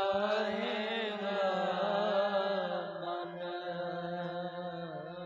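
Sikh kirtan: a man singing a drawn-out, ornamented line of gurbani over a harmonium's steady drone.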